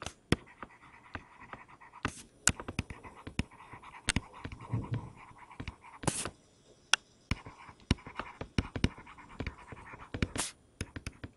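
Stylus writing on a tablet: quick taps and faint scratching strokes as words are written out, with a few louder swishes about 2, 6 and 10 seconds in.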